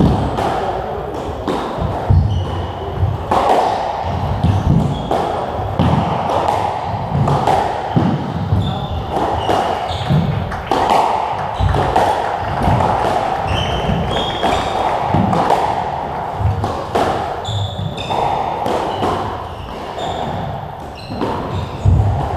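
A squash rally: the ball strikes the racket strings and hits the walls of the court over and over at an uneven pace, with brief squeaks from court shoes on the wooden floor.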